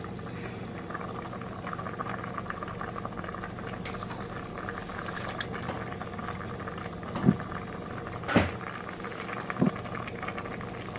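A pot of creamy meatball sauce bubbling at a boil over a steady hum. Three short knocks come about seven, eight and a half, and nine and a half seconds in.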